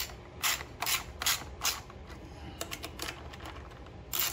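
Hand socket ratchet clicking in short strokes as a nut is tightened, about four strokes in the first two seconds, then lighter clicks, with the strokes starting again near the end.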